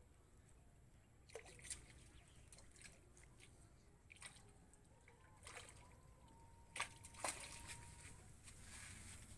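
Faint splashing and sloshing of a hooked fish thrashing at the water surface, with several short sharp splashes or taps, the loudest about seven seconds in.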